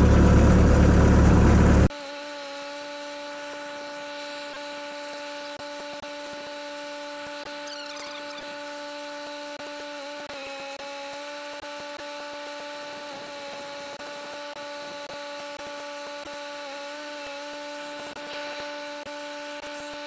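Skid steer's diesel engine running loud, cut off abruptly about two seconds in. After that comes a much quieter steady hum with faint scraping.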